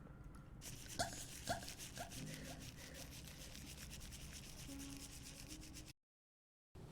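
A fast, even rubbing or scratching noise with many quick strokes a second, plus a few sharp clicks in the first two seconds; it cuts to dead silence shortly before the end.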